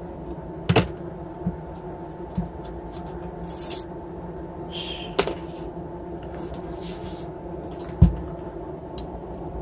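Small metal parts and tools clicking and clinking on a workbench while screws are worked out of a brushless motor's end plate, with short scraping between the clicks. A heavy thud about eight seconds in is the loudest sound.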